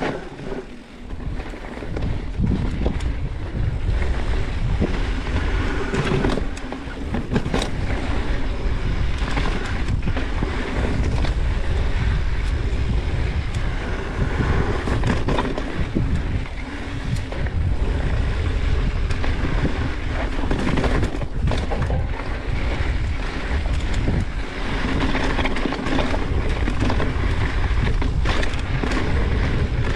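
Wind buffeting the microphone while a mountain bike rides a dirt trail, with a steady low rumble of tyres and scattered clicks and rattles from the bike. The noise drops briefly about a second in, then carries on steadily.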